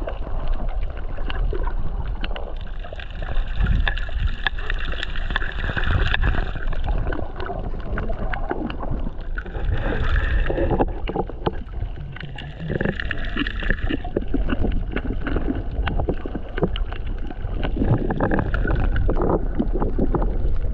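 Underwater sound picked up by an action camera submerged among reef fish: a heavy muffled rumble of moving water with steady crackling clicks and gurgling bubbles throughout.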